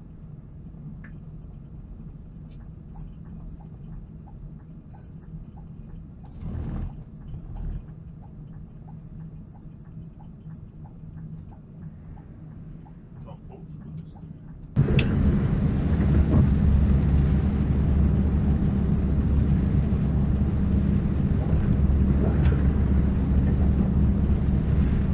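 Vehicle cabin drone while driving on a wet road: a fairly quiet steady low hum with faint ticks and a brief swell about seven seconds in. At about fifteen seconds it jumps suddenly to a much louder, dense rumble of road and wind noise.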